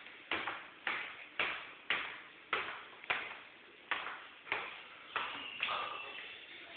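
Footsteps climbing a flight of stairs, about two sharp steps a second, each with a short ringing decay. A faint steady high tone comes in near the end.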